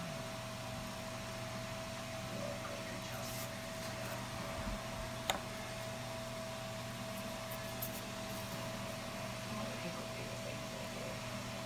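Steady machine hum with a fixed whining tone over a low drone, and a single small click about five seconds in.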